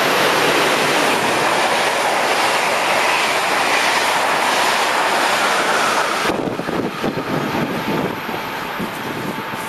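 SBB train passing close alongside a station platform: a loud steady rush of wheels and air that breaks off suddenly about six seconds in, leaving a lower rumble and uneven clatter of wheels over the rails.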